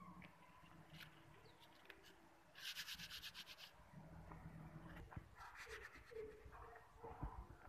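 Cucumber leaves being rubbed and crumpled between the hands before cooking: a short burst of quick, rapid rustling about three seconds in, with softer leaf rustles and small snaps around it.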